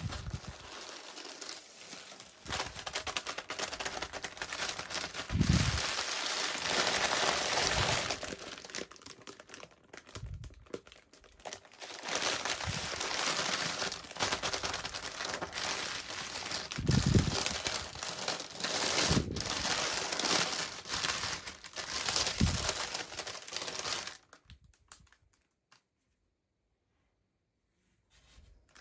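Toy packaging being unwrapped by hand: plastic wrapping crinkling and rustling in uneven bursts, with a few soft thumps. It stops about four seconds before the end.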